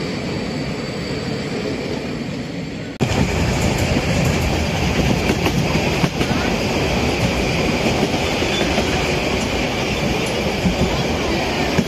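Metre-gauge HSB passenger carriages rolling on the rails, a steady running noise with wheels clattering over the track. About three seconds in, it gets suddenly louder and busier, with more clatter and hiss.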